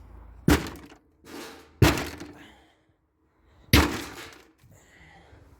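Three heavy hammer blows on a scrap dishwasher, each with a short ringing decay after it, the second about a second and a half after the first and the third about two seconds later.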